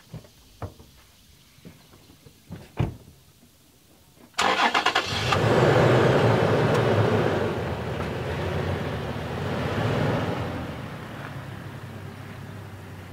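A car door shuts, then a Toyota 4Runner's 4.0-litre V6 cranks briefly and starts about four seconds in, revs up, then settles and slowly fades as the truck pulls away.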